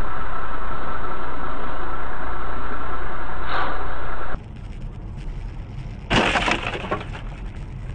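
Steady vehicle running and road noise that cuts off abruptly a little over four seconds in. About six seconds in comes a sudden loud impact with a breaking, cracking sound, a car collision, which dies away over about a second.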